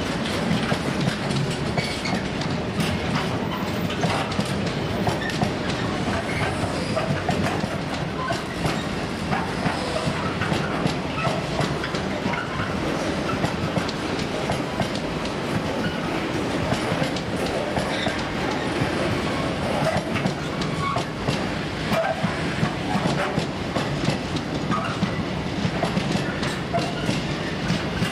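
Intermodal freight train's loaded container flat wagons rolling past close by: a steady rumble of wheels on rail with a continual run of clicks and clatter as the wheels pass over rail joints.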